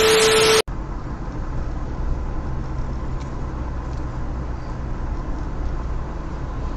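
Steady low rumble of a car driving along, engine and tyre noise heard inside the cabin through a dashcam microphone. It opens with a brief loud burst of hiss carrying a steady beep-like tone, cut off abruptly after about half a second.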